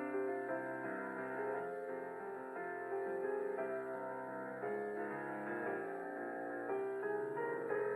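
Soft instrumental background music led by piano, slow sustained chords.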